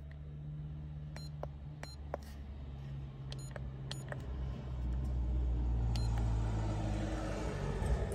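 Button clicks and a few short electronic beeps from a handheld TDB1000 key programmer as a number is entered on it, over a steady low hum. A louder rushing noise builds from about five seconds in.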